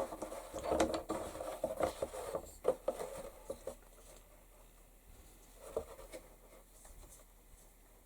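Light scratching and small irregular taps of hand work on a piece of leather as a rounded corner is traced around a template. Busiest in the first few seconds, then quieter, with one small knock near six seconds.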